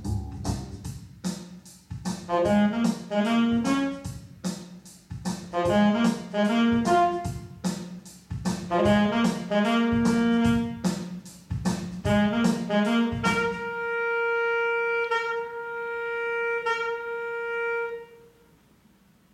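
Soprano saxophone playing a melody over an accompaniment with a quick ticking beat. About thirteen seconds in, the accompaniment stops and the saxophone holds one long note for about five seconds, then fades to a short silence.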